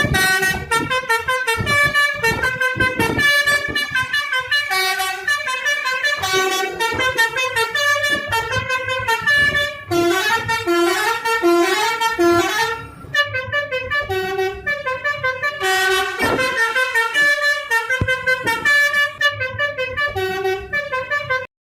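Telolet horn, a multi-tone musical vehicle horn, playing a fast tune of short notes that change pitch rapidly. There is a brief break about thirteen seconds in, and the horn cuts off abruptly near the end.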